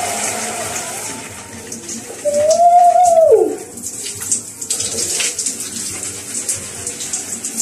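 Overhead shower head spraying water in a steady hiss. About two seconds in comes a loud drawn-out high call, lasting about a second, that rises slightly and then slides down in pitch.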